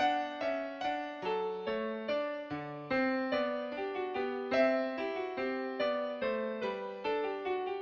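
Background music: a piano melody of plucked-sounding notes in a steady, even rhythm.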